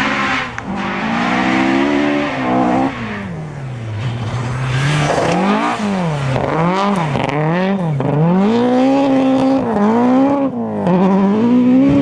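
Rally car engine on a gravel stage, revving hard and lifting again and again, its pitch climbing and dropping with each gear change and throttle lift. The changes come quickly in the middle, then turn into longer climbs near the end.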